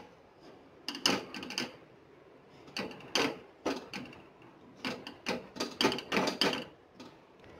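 Wooden spatula knocking and scraping against a nonstick kadhai as it breaks up lumps of mawa (khoya) for roasting, in an irregular run of taps and scrapes.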